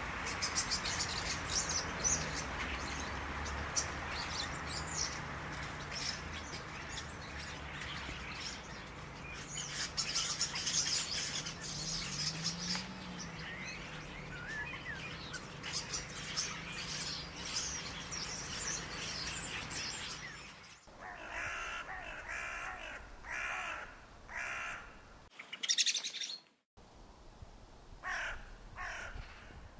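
Many songbirds chirping and singing at once over a steady background hiss. About two-thirds of the way through, a sudden cut gives way to a single bird giving repeated calls in short runs, with one higher, sharper call in between.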